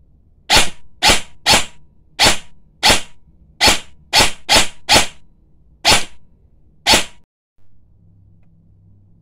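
AR-15 airsoft electric gun (AEG) with upgraded aluminium internals and an M120 spring, fired in eleven single shots with uneven gaps, each a sharp snap of the gearbox cycling; the shooting stops about seven seconds in.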